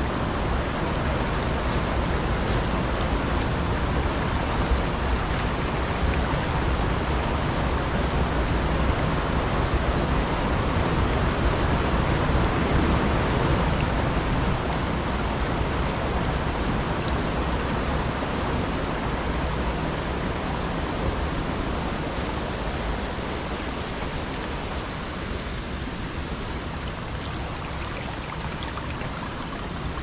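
Mountain stream water rushing steadily over rocks, a little louder around the middle and easing slightly toward the end.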